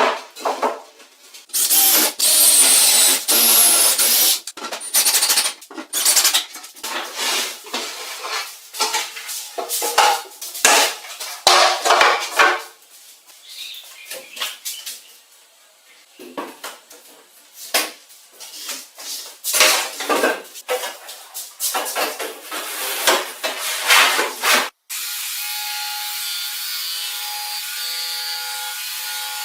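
Irregular clinking, clattering and scraping of metal parts and tools being handled. About 25 seconds in, it cuts off abruptly and a power tool runs steadily with a held whine.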